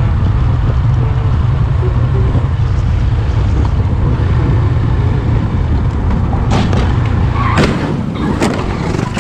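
Steady low rumble of a motorcycle under way, then from about six and a half seconds in a run of four sharp bangs as the motorcycle collides with a car crossing its path.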